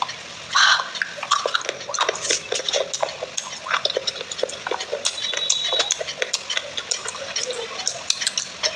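Fingers squishing and stirring wet clay paste, made from clay pots soaked in water, in a glass bowl: a dense run of small wet squelches and sticky clicks.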